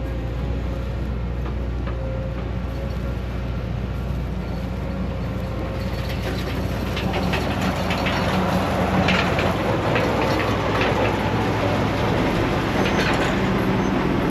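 Heavy diesel machinery running steadily, joined about six seconds in by a growing mechanical clatter with many sharp clicks and rattles.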